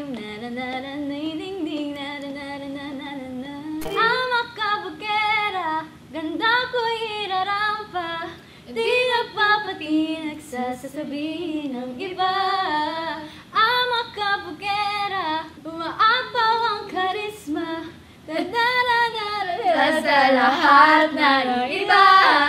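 A young woman singing a cappella, with no accompaniment, her voice sliding between long held notes. Near the end other voices join in over it, laughing.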